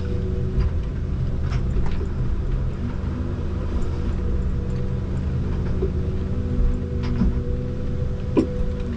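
Komatsu 901 harvester's engine and hydraulics running steadily, heard from inside the cab, with a few sharp cracks as the harvester head pushes through brush and small trees. The loudest crack comes near the end.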